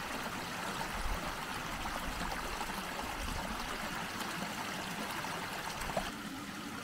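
Runoff water flowing steadily through a rocky channel, spilling over a small drop into a muddy pool; slightly fainter near the end.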